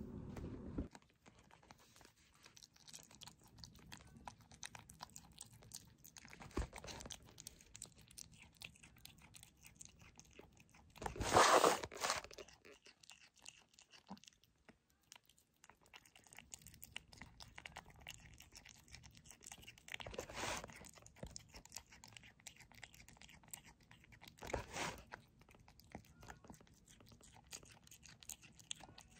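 Kitten chewing raw horse meat from a bowl: a steady run of small wet chewing clicks as it chews each bit over and over. A few louder chomping bursts stand out, the loudest a little before the middle.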